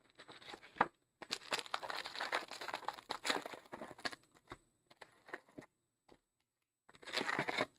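Plastic wrap and card-pack wrappers crinkling and tearing as a sealed Donruss football hobby box is opened and its packs pulled out: a dense crackling stretch of about three seconds, scattered rustles, then a shorter burst near the end.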